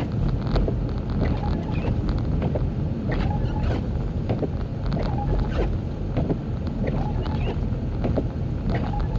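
A car driving on snow-covered roads: a steady low rumble of road and tyre noise, with many small clicks and ticks scattered throughout.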